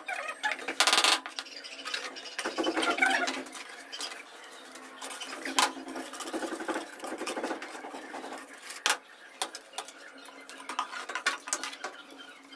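Small steel trowels scraping and clinking against wet cement and the template board, with irregular scraping strokes and a few sharp metallic clinks.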